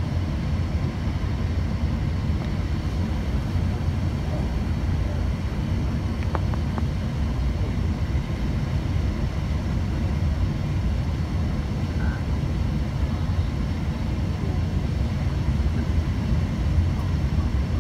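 Steady cabin noise of an Airbus A380 on its landing approach: an even low rumble of engines and rushing air, heard inside the cabin by the window.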